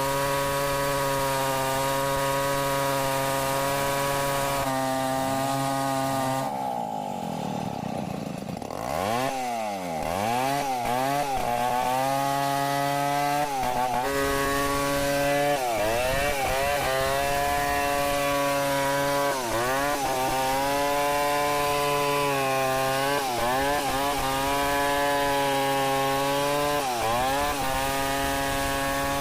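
Stihl 070 two-stroke chainsaw running at high revs while ripping a log lengthwise. A little over six seconds in, its pitch falls sharply and climbs back, and it dips briefly several more times as the chain loads up in the cut.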